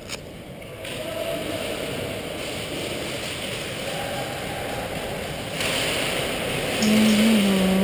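Steady muffled background noise with faint distant voices; near the end a man's voice calls out in one long drawn-out tone.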